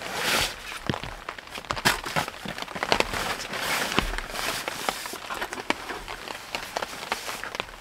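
Nylon stuff sack and backpack fabric rustling and crinkling as gear is pulled out of the pack, with many small clicks and knocks of items being handled.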